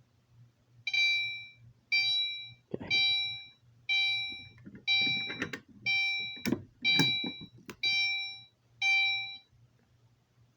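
Fire alarm notification appliance set to chime, sounding a repeating ding about once a second, nine times, after the pull station is pulled. Several sharp knocks and clatters are mixed in, mostly in the middle.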